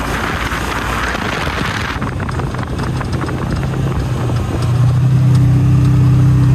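Polaris side-by-side driving over rough ground, its engine running under wind and tyre noise. About two-thirds of the way in the engine settles into a steady, louder note.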